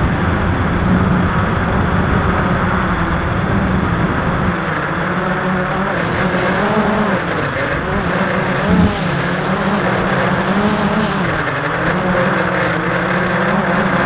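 Motor and propeller noise from a small aircraft flying overhead shots, droning steadily with its pitch wavering up and down as the throttle changes, over a rush of wind.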